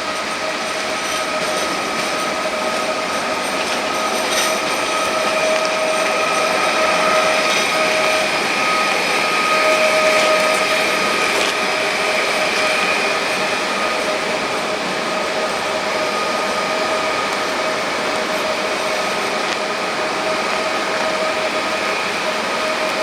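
Pesa Elf EN76 electric multiple unit at the platform, giving off a steady, high electrical whine over a haze of noise.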